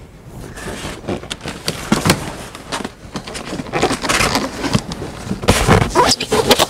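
Styrofoam-packed, plastic-wrapped large-format printer being slid across a wooden pallet: continuous scraping, rustling and crackling of foam and wrap against the wood, growing louder, with a heavier bump near the end.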